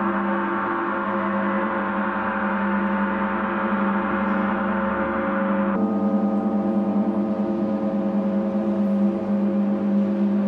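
Large hanging gong played with soft mallets: a sustained, even wash of many overlapping tones over a strong low hum. About six seconds in, its brighter upper tones suddenly drop away while the low hum carries on.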